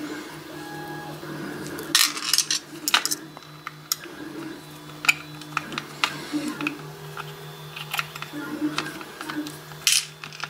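Small metal parts and tools clicking and clinking as a pin-tumbler lock is taken apart by hand. There is a quick run of sharp clicks about two seconds in, scattered single clicks after it, and another run near the end.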